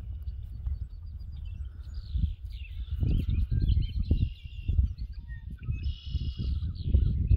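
Footsteps walking through short grass, with songbirds chirping and trilling in the background. The footfalls get heavier about three seconds in.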